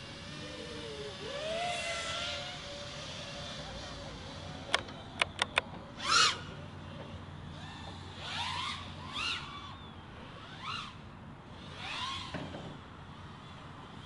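FPV freestyle quadcopter's brushless motors whining, the pitch gliding up and down with the throttle, with several short throttle punches in the second half. Four sharp clicks come in quick succession about five seconds in.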